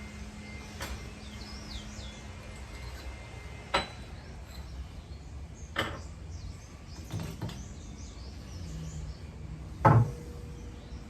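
Several separate knocks and clicks of parts being handled and set down, the loudest near the end, over a faint steady hum.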